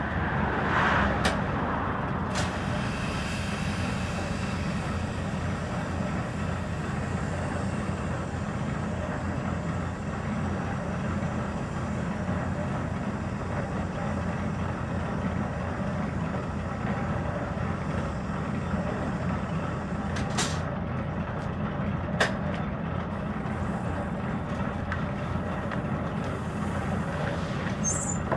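Steady low rumble of running machinery, with a few sharp clicks and knocks, twice near the start and twice about twenty seconds in.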